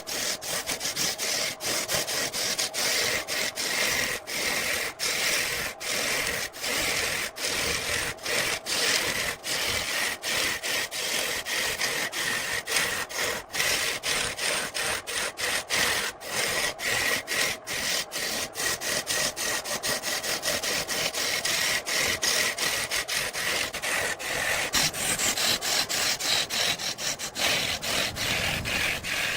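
A tool scraping against wood, a continuous rub broken by many short gaps.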